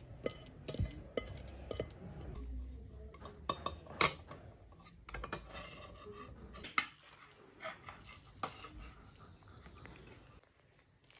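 Metal kitchen utensils clinking and scraping: a metal spoon in a stainless-steel pot and a table knife spreading chocolate glaze over a cake on a plate. The clinks are irregular and sharp, the loudest about four seconds in.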